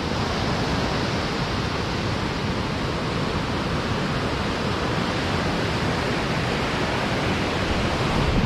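Steady, even rushing of sea surf, with no breaks or distinct events.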